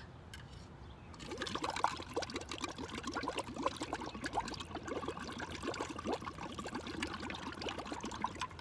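Bubbles blown through a metal straw into a cup of water: a continuous bubbling gurgle that starts about a second in, after a breath, and stops near the end.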